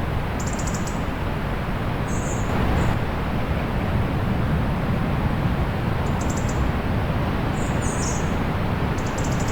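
Steady, even rush of the sea with a deep low rumble. Short high-pitched bird chirps and trills sound over it every second or two, a few close together about 8 seconds in.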